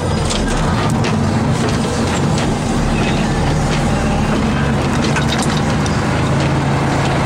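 1991 Ford L9000 plow truck's diesel engine running steadily under load, heard from inside the cab, mixed with the noise of the plow and wing pushing snow and scattered short clicks and rattles.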